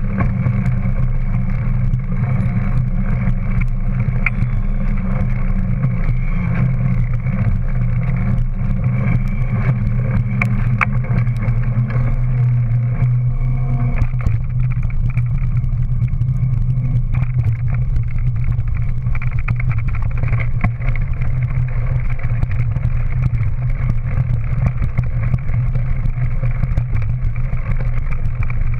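Steady, muffled rolling rumble of a Scott 50 dualie mountain bike ridden at speed: tyre noise on the path mixed with wind on the bike-mounted action camera. The low part of the rumble changes about 14 seconds in.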